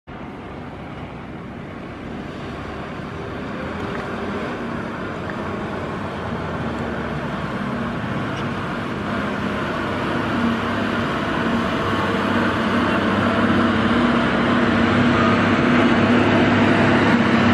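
Diesel engine of a state-transport bus running with a steady low drone, growing steadily louder as the bus draws near on the hairpin bend.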